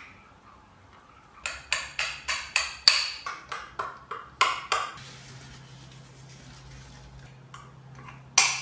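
A spoon stirring a thick mayonnaise dressing in a glass bowl, clinking and scraping against the glass in a quick run of taps for about three seconds. After a quieter stretch there is a single clink near the end as the dressing is spooned onto potatoes in a glass dish.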